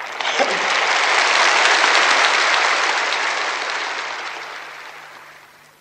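A large audience applauding. The applause builds for about two seconds, then fades away and is gone by the end.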